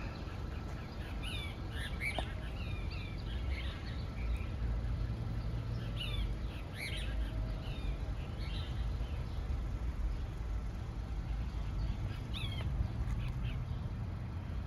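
Small birds chirping: short high chirps every second or so, in scattered clusters, over a low steady rumble of outdoor background noise.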